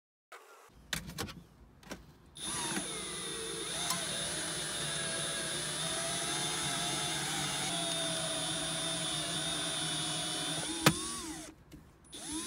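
Milwaukee cordless drill driving an Orange Bat winding tool, reeling in the cutting wire to finish cutting the windscreen free. After a few handling clicks, the drill runs steadily with a whine for about nine seconds, stops with a sharp click, then gives one short spin near the end.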